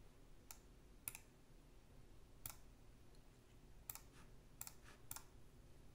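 Faint single clicks at a computer, about six spaced irregularly, over near-silent room tone.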